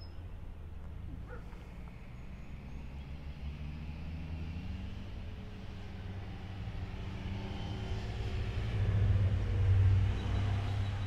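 Engine rumble of a passing motor vehicle, growing louder over several seconds and loudest near the end.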